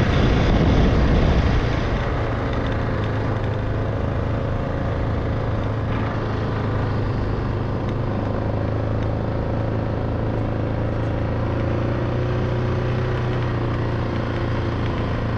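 Motor vehicle engine running steadily with a low hum, a little louder for the first couple of seconds and then even.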